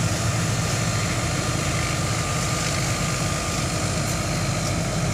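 Large engine of a mobile crane running steadily, a low even drone with no change in pitch.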